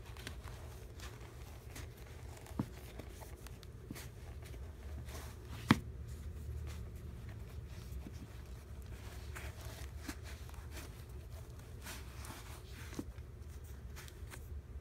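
Faint rustling and scuffing of canvas sneakers and their laces being handled as feet are pushed into them, over a low steady hum, with a few soft clicks and one sharp knock about six seconds in.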